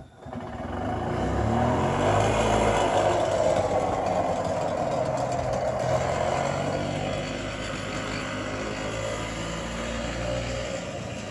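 The Robin 244cc two-stroke engine of a 1987 EZ-GO Marathon golf cart running as the cart pulls away. It grows louder over the first couple of seconds as it speeds up, holds steady, then fades slowly as the cart drives off.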